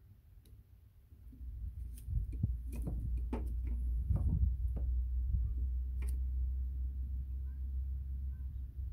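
Small sharp clicks and ticks of pliers and a plastic ECU wiring connector being handled as a wire terminal is pushed into the connector, most of them between about two and six seconds in, over a low rumble.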